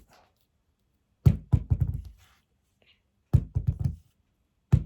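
Two quick runs of knocks, about a second and a half in and again near four seconds: a firm lump of putty being rapped against a hard surface.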